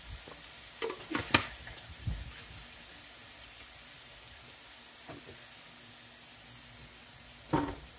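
Chicken tinga in tomato-chipotle sauce sizzling steadily in a hot frying pan, with a few light knocks in the first two seconds and a brief louder sound near the end.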